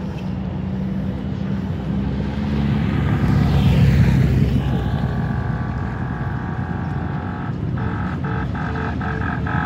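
Engines of an approaching motorcycle column rumbling, loudest about four seconds in. From about halfway a held horn tone sounds, then repeated short honks near the end.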